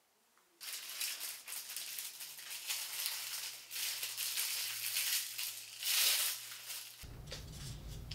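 Plastic packaging crinkling and rustling as it is handled, starting about half a second in and going on in quick crackly bursts, loudest near six seconds, then giving way to a low steady hum about seven seconds in.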